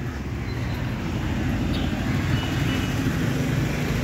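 A vehicle engine running with a steady low rumble, as the vehicle sets off.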